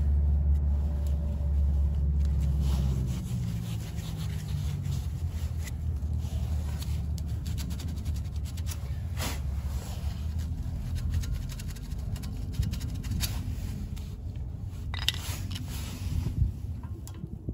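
Gloved hands rubbing and wiping car brake parts with a cloth, working the brake pad and the rotor face to clean off stray anti-seize. Uneven rubbing and scraping with scattered small clicks and knocks. A low rumble runs through the first three seconds.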